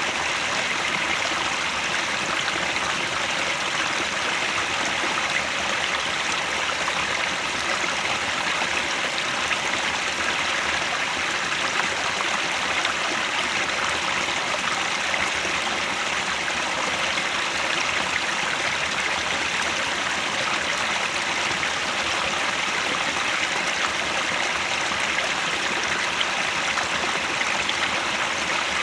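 Headwater stream flowing steadily, an even, unbroken sound of running water.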